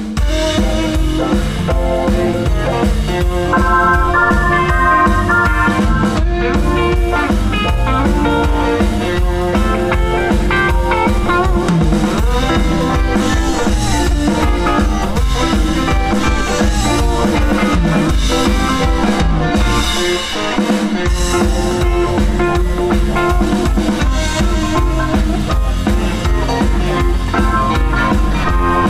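Live blues band playing electric guitars, drum kit and keyboard to a steady beat. The low end drops out briefly about twenty seconds in, then the full band comes back.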